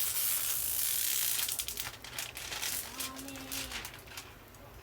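Diamond painting canvas and its plastic cover film being handled and crinkled. A dense rustle lasts about two seconds, then thins to scattered crackles and light ticks.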